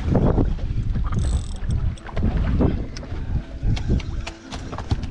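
Wind gusting on the microphone aboard a small boat at sea, a heavy rumble that swells and falls, with scattered light clicks in the second half.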